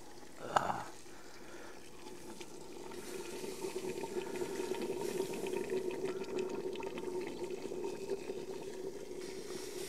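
Boiling water being poured into an Afghan kazan over the fried meat, onion and carrot of the pilaf base, a steady splashing pour that grows louder about three seconds in. A short knock comes about half a second in.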